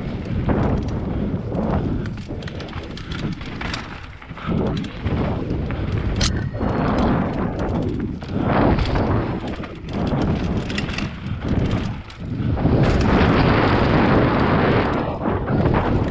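Mountain bike riding fast down a dirt flow trail: tyres rolling on packed dirt, with many short knocks and rattles from the bike, under a steady rush of wind on the microphone that swells and eases with speed. The loudest stretch is a long surge near the end.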